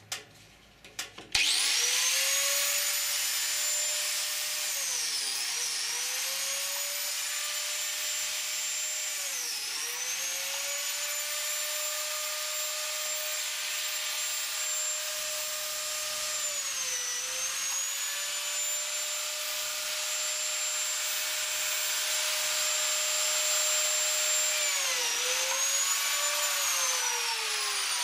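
Einhell biscuit joiner (plate joiner) switching on about a second in with a quick rising whine. Its motor and blade run at a high steady pitch that sags four times under load as the blade plunges into the wood. Near the end it is switched off and the whine falls away as it winds down.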